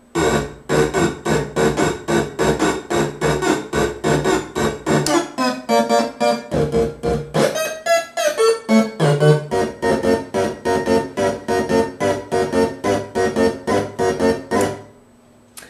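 Hand-built analog noise machine in trigger mode, gated on and off by a step sequencer: a fast rhythmic run of short pitched synth-like pulses, about four or five a second. The notes change around the middle, and the run stops shortly before the end.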